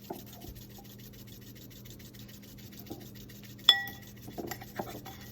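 Kitchen sounds while seasoning goes into a mixing bowl: a few soft light knocks, then a single sharp, ringing clink of a hard object against the bowl about two-thirds of the way through. A faint steady low hum sits underneath.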